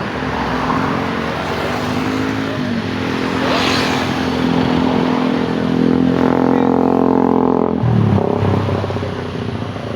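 Road-vehicle engines running and passing, one speeding up with a rising engine note that drops sharply near the end.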